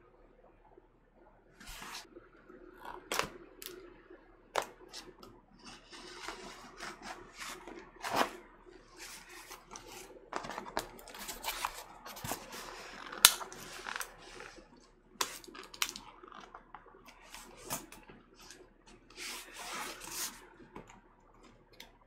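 A package being opened and unpacked by hand: scissors cutting, paper and cardboard rustling and tearing, with scattered sharp clicks and knocks.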